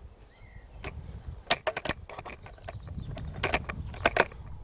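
A rimfire bolt-action rifle, a CZ 452, being worked after a missed shot: a quick run of sharp metallic clicks about one and a half seconds in, and another about two seconds later, as a fresh round is chambered.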